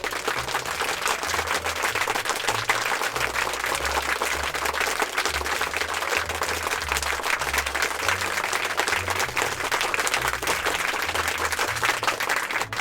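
Applause: dense clapping from a crowd that starts and stops abruptly, with low bass notes underneath.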